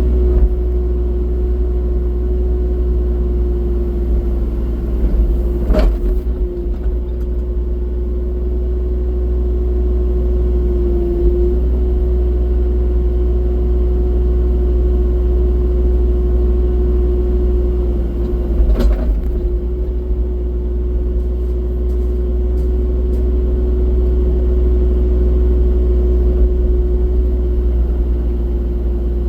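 Excavator's diesel engine running steadily at constant speed, with a steady whine over a low rumble. Two sharp knocks stand out, about six seconds in and again near nineteen seconds.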